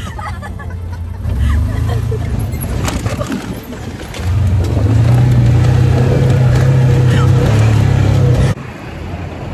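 A motor vehicle running with a low, steady drone, which grows louder about four seconds in and cuts off suddenly near the end.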